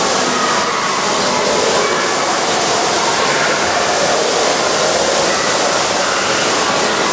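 A steady, loud rushing hiss with no breaks.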